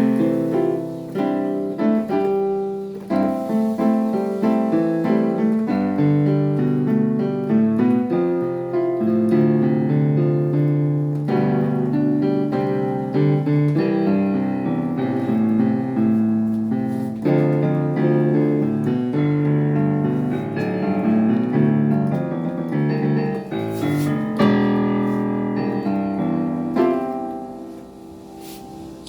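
Solo piano playing a Christmas piece: chords and a melody throughout, growing quieter near the end.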